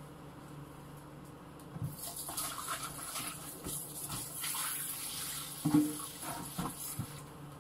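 Kitchen tap running into a stainless-steel sink while hands wash something under the water, starting about two seconds in. A few knocks and clinks come near the end, the loudest one about six seconds in.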